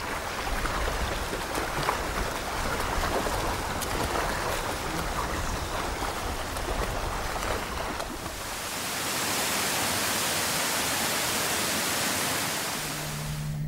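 Rushing water, uneven at first, then settling into a steady, even rush about eight seconds in.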